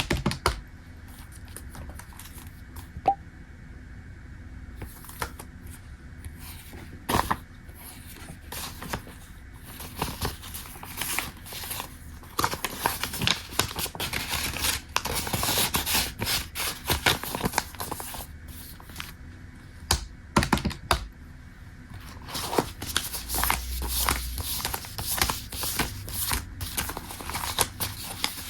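Hands handling paper and small objects: intermittent rustling, tapping and clicking, sparse at first and busier from about twelve seconds in.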